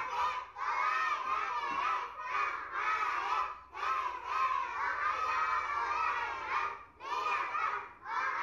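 A class of young children's voices in loud unison, phrase after phrase with short breaks between them.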